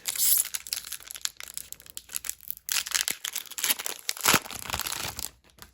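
Crinkling and tearing of a plastic trading-card pack wrapper as a Panini Prizm basketball pack is ripped open, in two spells of rustling.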